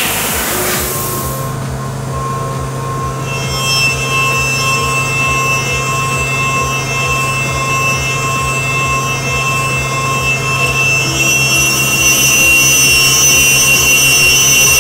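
Heller CP8000 machining centre cutting an aluminium wheel, its spindle spinning a carbide cutter with a steady high whine that sets in about two seconds in. Background music with a steady beat runs underneath.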